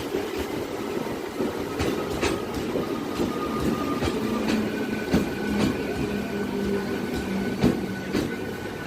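Passenger train running past on the rails, with irregular clacks of wheels over rail joints about once a second and a faint steady whine.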